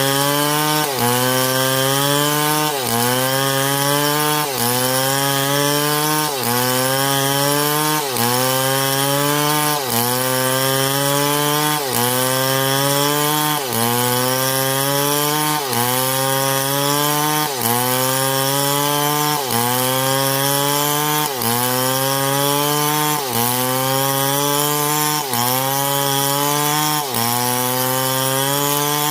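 Two-stroke STIHL MS661 chainsaw cutting through wood. Its engine pitch drops sharply and climbs back again in a steady cycle about every two seconds.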